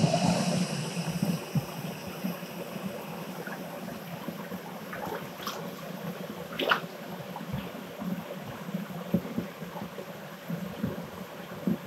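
Water trickling and gurgling, with scattered light knocks and clicks.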